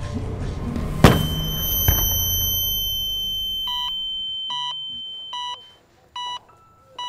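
A firecracker goes off with a single sharp bang about a second in, followed by a steady high ringing tone that fades away over a few seconds. From about halfway through, an electronic beep repeats at an even pace, about once every 0.8 seconds.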